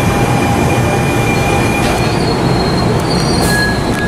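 Loud rumble of a moving passenger train's wheels on the rails, with steady high-pitched wheel squeal. One squealing tone dies away about two seconds in, and new, higher squeals start about three seconds in.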